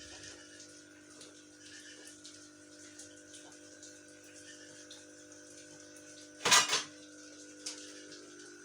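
Steady low electrical hum with a few faint ticks. About six and a half seconds in, a brief loud rasping noise comes in two quick pulses.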